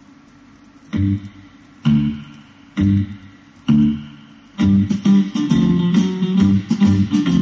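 A vinyl record playing on a Pioneer PL-X300 mini turntable: guitar music. After a quiet first second, four separate guitar chords are struck about a second apart, then the song carries on steadily with guitar and bass.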